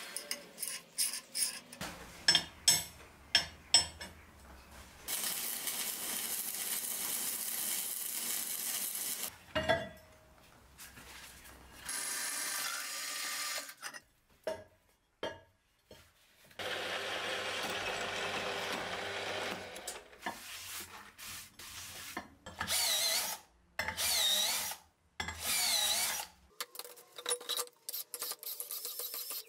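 Metalworking sounds: small steel blocks clicking against each other and a steel plate as they are handled, then drills boring steel, ending with a cordless drill run in three short bursts to deburr holes in a steel plate.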